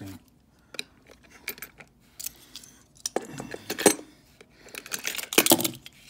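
Small diecast metal toy vehicles clinking and clattering as they are handled and set down on a tabletop: a few light clicks at first, then denser rattling from about halfway, with sharp knocks near the end.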